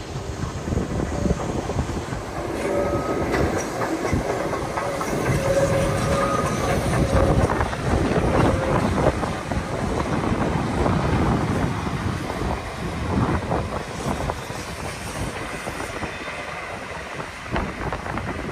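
Steam locomotive 34028 Eddystone, a rebuilt Southern Railway West Country class 4-6-2, passing with its train, the wheels clattering over the rail joints.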